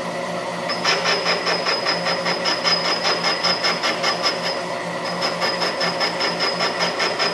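Metal lathe running while a carbide cutting tool takes a light cut across the face of a steel sawmill saw collar. About a second in the cut starts: a rhythmic ticking of about five a second over the machine's hum, with a high steady whine from the tool that breaks off briefly near the middle.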